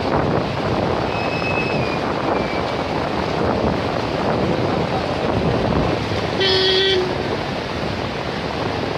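Rushing floodwater of a swollen seasonal stream, a steady loud rush. A short horn honk sounds about two-thirds of the way through.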